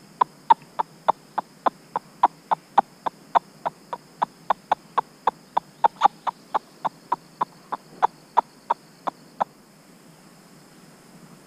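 A squirrel barking: a fast run of short, sharp calls, about three or four a second, that stops about two seconds before the end.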